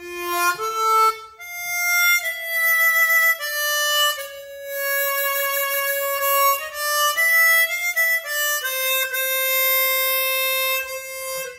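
Seydel Symphony 16-hole chromatic harmonica playing a slow melody of single notes: a few short rising notes at first, then long held notes, ending on a low note held for about three seconds. Each note has a rich, complex tone, which the player credits to the larger 16-hole build.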